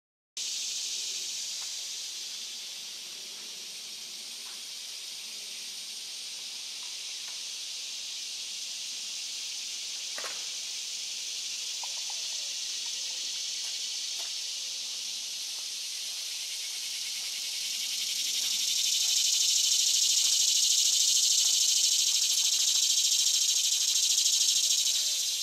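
Cicadas droning in a steady, high-pitched chorus that swells louder in the last third and eases off near the end.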